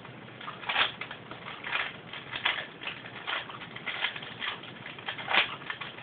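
A 4x4x4 Rubik's Cube's plastic layers being turned by hand: a string of irregular clicks and scrapes, about one or two turns a second, the loudest about a second in and again about five seconds in.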